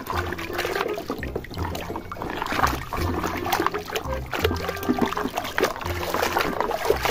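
Muddy water sloshing and splashing in a tub as a hand scrubs a plastic toy clean, with many short splashes. Background music with a steady low beat runs underneath.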